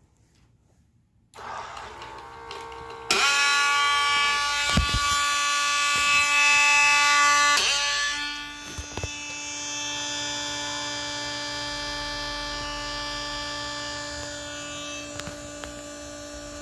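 Ice maker auger gear motor starting about a second in, then running with a loud, high whine and a few clicks, settling after several seconds into a quieter steady hum. The sound is taken for the motor stripping the last of its gear teeth, so the motor spins while the auger stays still.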